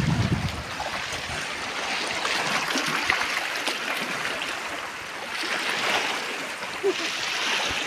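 Small sea waves washing in against the shore: a steady rush of water that swells a little about five seconds in.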